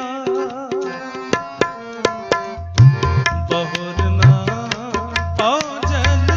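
Instrumental passage of Sikh kirtan between sung lines: tabla playing a rhythm of sharp strokes over a held melody, with deep bass drum strokes coming in about two and a half seconds in.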